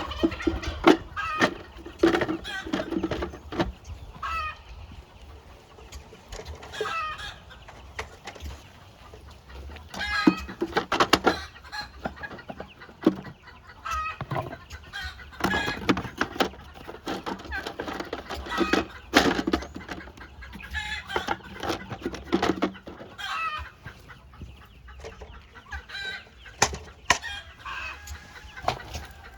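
Chickens clucking, with repeated sharp wooden knocks and clicks as beehive frames are handled and moved between hive boxes.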